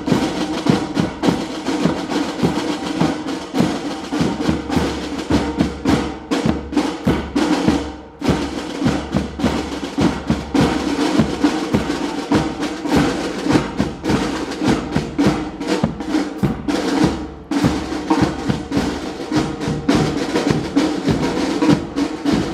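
A cadet drum corps of marching snare drums playing a fast, rhythmic drum cadence with rolls, backed by a bass drum. It drops out briefly about eight seconds in.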